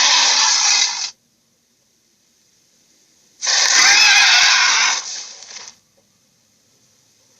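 Dragon screech-roar sound effects: a harsh, rasping call cuts off about a second in, and after a silence another wavering screech comes in near the middle, lasting about two seconds and trailing off.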